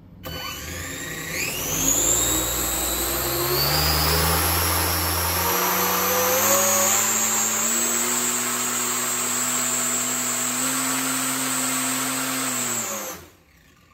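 Electric RC motor spinning an 8-inch 3D-printed toroidal (looped-blade) propeller on a thrust stand: a whine rises as it spools up over the first two seconds, holds at high speed with the rush of air, then winds down and stops about a second before the end.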